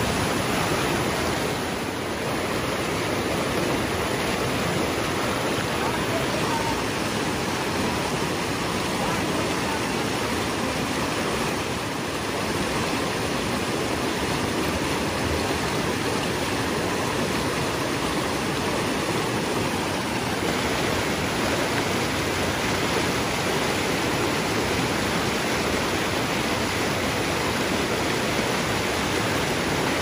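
Fast, turbulent river water rushing and churning steadily around a vehicle stuck midstream.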